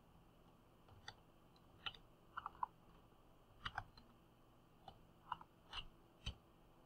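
Faint computer keyboard keystrokes: about ten separate key presses at an uneven, hunt-and-peck pace as a short word is typed.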